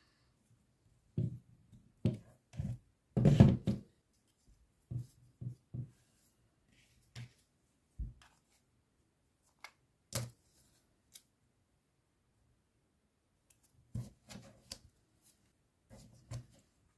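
Scattered light knocks, taps and clicks of small hand tools and parts being picked up and set down on a work surface, with a louder cluster of knocks about three seconds in.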